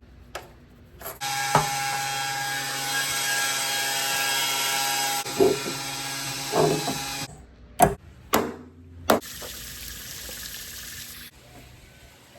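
Power tool motor running steadily for about six seconds, then stopping. A few sharp knocks follow.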